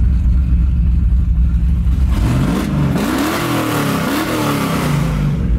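V8 truck engine on Holley Sniper fuel injection, exhaust cutouts open, idling with a deep rumble and then revved up and down a couple of times from about two seconds in, settling back to idle near the end.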